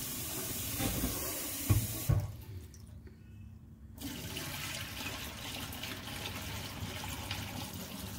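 Tap water running into a steel pressure cooker pot while toor dal is rubbed clean in it by hand, with a couple of knocks about two seconds in. After a short quieter stretch, the rinse water pours out of the tilted pot into a steel sink.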